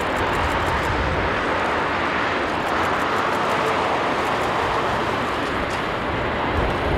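Boeing 787-9 airliner's jet engines giving a steady rushing noise as it touches down and rolls out along the runway.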